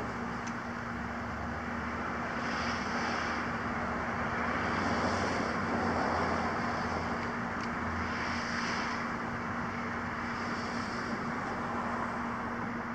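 Steady outdoor vehicle noise: a constant low hum under a broad hiss, with a few brief higher swells and a slight rise in loudness about halfway through.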